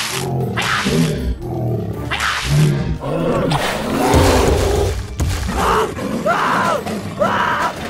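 Dinosaur roar sound effect over background music, with a few short hissing bursts first and arched, wailing calls near the end.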